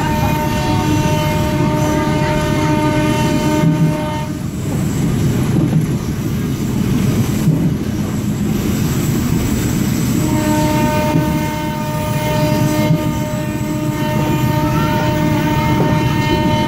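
Train horn sounding a long blast of two notes together, cutting off about four seconds in, then another long blast from about ten seconds in, held through the end. Underneath, the steady rumble and wheel clatter of the moving train.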